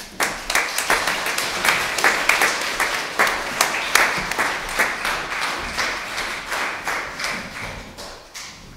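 Congregation applauding; the clapping thins and dies away near the end.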